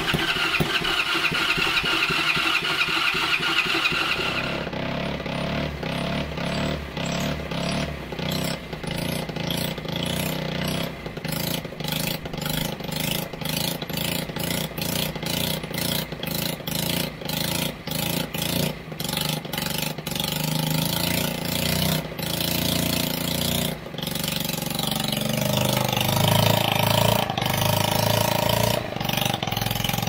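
Racer 110 moped's small single-cylinder four-stroke engine, rebuilt with a 50 cc cylinder, running: revved high for the first few seconds, then running unevenly at low speed with repeated stumbles, and revving up again near the end. The carburettor needle has not yet been set, and the engine runs weakly, which the owners take as a shortage of fuel.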